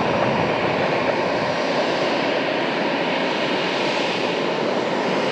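Airbus A320-214's CFM56-5B turbofan engines running at low taxi thrust, a steady, even jet noise as the airliner taxis.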